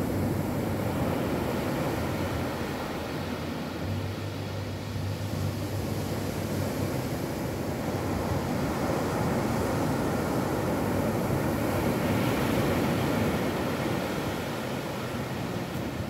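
Ocean surf breaking and washing up a sand beach: a steady rushing that grows louder in the second half and eases toward the end.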